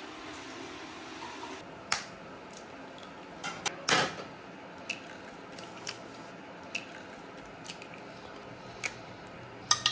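Eggs cracked one after another against the rim of a small glass bowl: separate sharp taps and cracks of shell, the loudest about four seconds in. A steady hiss at the start cuts off after about a second and a half.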